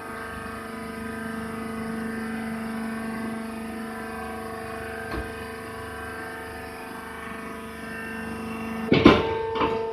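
Hydraulic baler's power unit (electric motor and pump) running with a steady hum. There is a single knock about five seconds in, and near the end a burst of loud clunks, after which the hum changes pitch.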